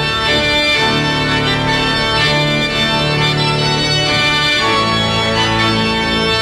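Background music: an organ holding long, sustained chords that shift to new chords a couple of times.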